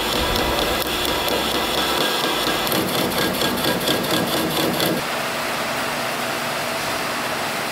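Metal lathe running while turning a taper on the end of a boat's propeller shaft, with a fast, even ticking about three seconds in. About five seconds in the cutting stops and only a steady hiss remains.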